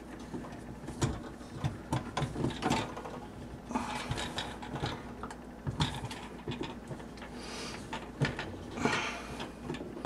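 Plastic parts of a dishwasher sump being handled and fitted by hand: irregular clicks, knocks and scraping as a wiring plug is pushed home and a plastic piece is set into place.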